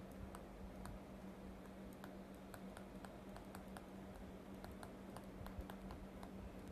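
Faint, irregular clicks and taps of a stylus nib on a pen tablet as words are handwritten, over a low steady hum.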